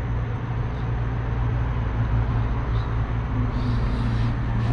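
Vehicle engine idling with a steady low hum, most likely the tow truck's own. A faint short hiss or scrape comes about three and a half seconds in.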